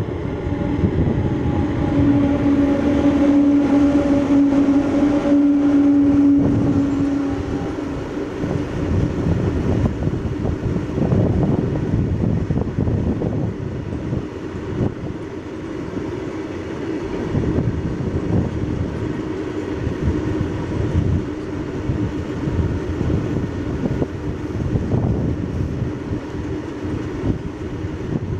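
Twin WAG-9 electric locomotives of a loaded freight train passing close by, with a steady hum for the first several seconds. After that, a long string of loaded open freight wagons rolls past, wheels rumbling and clattering on the rails.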